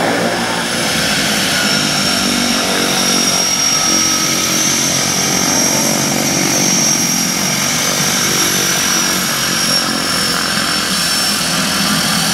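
De Havilland Canada DHC-6 Twin Otter's two turboprop engines running as it taxis: a steady high turbine whine over the rushing drone of the propellers.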